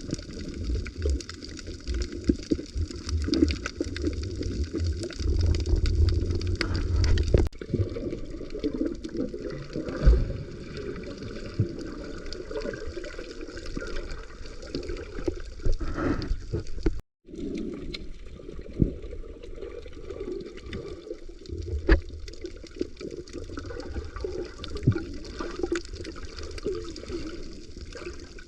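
Underwater sound over a coral reef: water moving and gurgling around the microphone, with a fine crackle of many small clicks throughout. The sound cuts out briefly about two-thirds of the way through.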